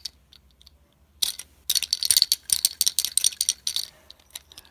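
Plastic fidget spinner rattling and clicking as it is fumbled in the fingers close to the microphone: a dense, irregular run of sharp clicks starting about a second in and stopping near the end.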